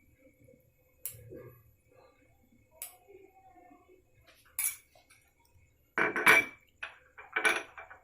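Kitchen utensils clinking and scraping against pots and pans: a few light clicks, then two louder clatters of scraping near the end.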